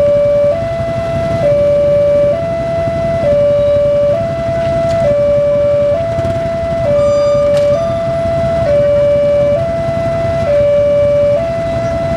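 Railway level-crossing warning siren sounding a two-tone hi-lo alarm, switching between two close pitches a little under once a second, warning that a train is approaching. A low rumble runs underneath.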